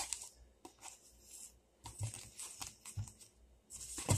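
Hands pressing and patting raw ground beef into a hamburger patty, with plastic wrapping crinkling and rustling in irregular bursts and a few soft pats.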